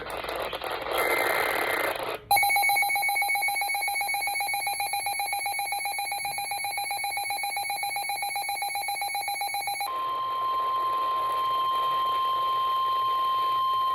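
NOAA weather radio alerting: after about two seconds of radio hiss, the receiver's built-in alarm sounds as a fast-pulsing buzzy beep for about seven seconds, then the broadcast's steady 1050 Hz warning alert tone takes over, the signal that a warning message, here a special marine warning, is about to be read.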